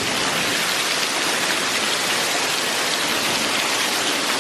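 Waterfall: a steady, even hiss of falling water.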